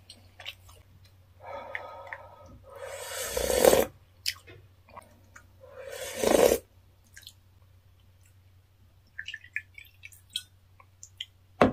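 Two long, loud slurps of spicy instant-noodle broth, ending about four and six and a half seconds in, the second taken from a spoon. Then soju trickles and ticks as it is poured from a glass bottle into a small shot glass, followed by a sharp click near the end.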